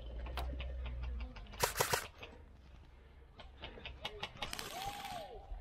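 Scattered sharp snaps of airsoft gunfire, with a quick cluster about two seconds in and a few more shots later. A short burst of hiss comes near the end.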